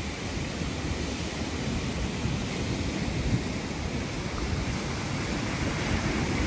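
Surf breaking and washing up on a sandy beach, a steady rushing noise, with wind rumbling on the microphone.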